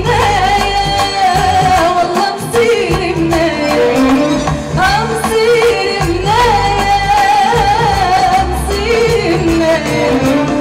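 A woman singing an Arabic tarab song live into a microphone over band accompaniment, with long, ornamented held notes that waver.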